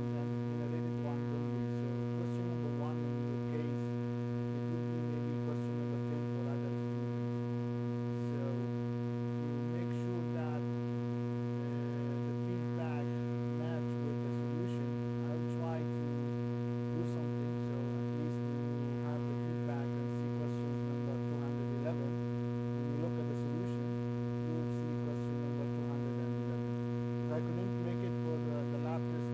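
Steady electrical mains hum in the recording: a low, unchanging drone with a stack of higher overtones, and a faint voice barely showing through beneath it.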